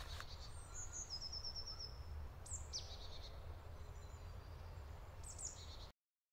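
Faint forest ambience: a few birds calling, with a quick run of high repeated notes about a second in, short falling calls midway and another call near the end, over a low steady rumble. The sound cuts off suddenly to silence near the end.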